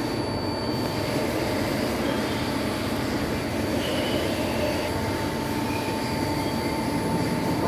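Steady industrial machinery noise with a thin, steady high whine running through it.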